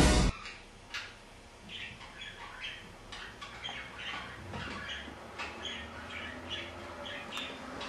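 Budgerigars chirping: many short, high calls repeated every fraction of a second, with a few sharp clicks among them.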